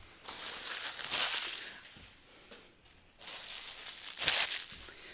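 Plastic packaging crinkling in two handlings, each lasting about a second and a half.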